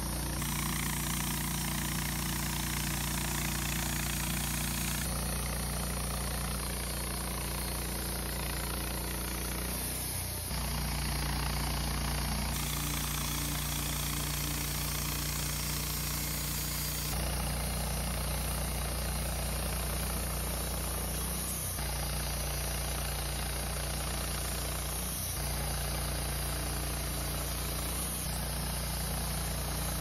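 Woodmizer LT15 portable band sawmill running steadily, its engine humming under load while the band blade cuts through a green Douglas fir log. The sound jumps abruptly several times.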